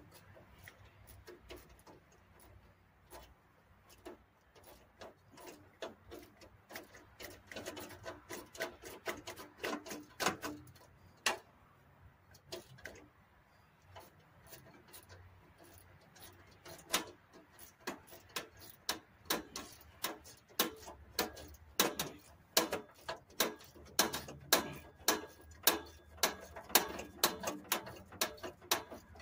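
Ratchet wrench clicking in irregular runs of quick clicks as a bolt is tightened, with a lull near the middle and denser clicking later on.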